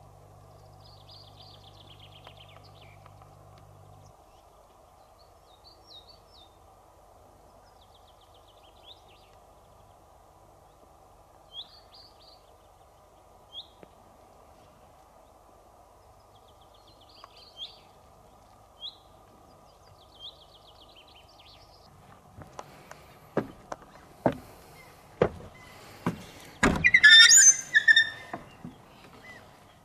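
Small birds chirping, with short repeated high trills, over a faint steady hum. In the last several seconds comes a run of sharp knocks and one loud, high-pitched squeal.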